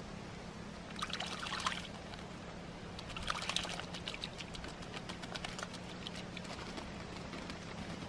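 Black-billed magpie bathing in a shallow bowl of water, splashing in quick short dips: a brief bout of splashing about a second in, then a longer one from about three to six seconds in.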